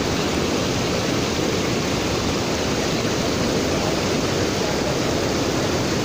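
Waterfall: a steady rush of water pouring over a broad, shallow rock ledge.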